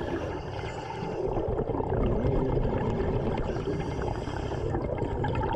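Underwater bubbling from a diver's air, a steady gurgling churn.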